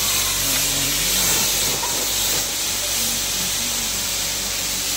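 High-pressure car-wash lance spraying water onto a car's bodywork: a steady, loud hiss.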